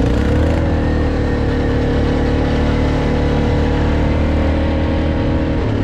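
An off-road vehicle's engine under steady high revs. Its tone climbs just as it starts, holds level, and falls away near the end, over a constant low rumble.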